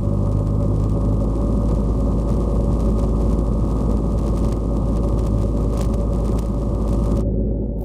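Single-engine light aircraft's piston engine and propeller droning steadily inside the cockpit, a dense low hum with a hiss over it. Near the end the hiss drops away abruptly while the low drone continues.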